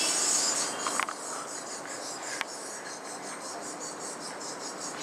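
Open-air background ambience: a steady hiss with a high, evenly pulsing chirr over it, and two sharp clicks about one and two and a half seconds in.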